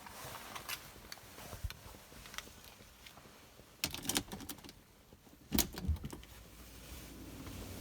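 Light scattered clicks and knocks, with two louder clattering bursts about four and five and a half seconds in; a steady low hum comes in near the end.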